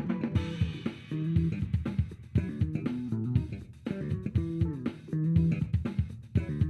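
Recorded music with bass guitar, guitar and drums, played back through a small studio monitor speaker and picked up by a Shure SM57 dynamic microphone.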